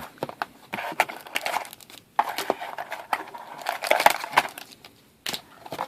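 A trading card pack's foil wrapper crinkling and crackling as it is torn and handled, with cards clicking and sliding against each other in uneven spurts.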